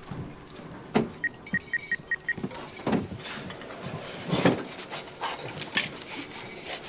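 Treadmill control panel beeping: about six short, evenly spaced high beeps a little over a second in. Scattered clicks, knocks and rustles follow, with a few short wordless grunts.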